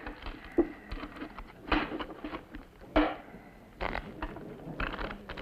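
Scattered short clicks and knocks, about five or six of them, over faint room noise.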